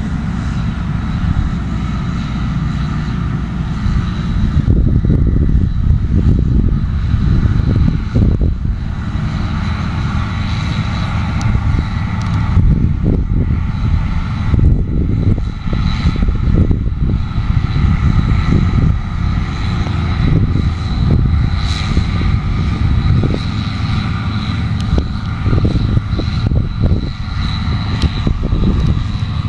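New Holland CX8070 combine harvester running steadily while harvesting barley: a continuous, loud mechanical drone with an uneven low rumble and a thin, steady high whine.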